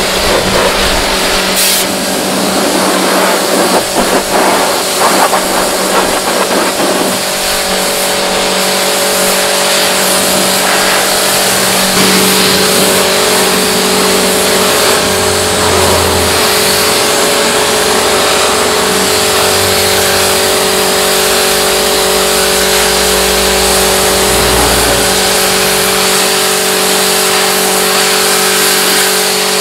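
Pressure washer running: a steady motor hum under the hiss of the high-pressure water jet spraying onto the mud-caked car body. The hum shifts in pitch a couple of times.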